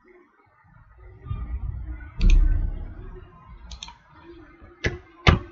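Computer mouse and keyboard clicks: a few faint clicks, then two sharp, loud clicks about half a second apart near the end. About two seconds in there is a louder low thump.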